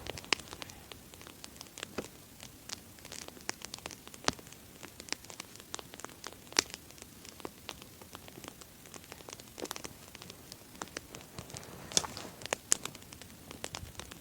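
A wood campfire of the log "candle" type crackling, with irregular sharp pops over a soft steady hiss.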